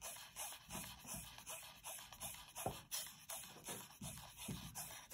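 Number 8 pearl cotton thread being wound by hand round a piece of corrugated cardboard: faint, repeated rubbing and scratching of thread and fingers against the cardboard, about two or three strokes a second.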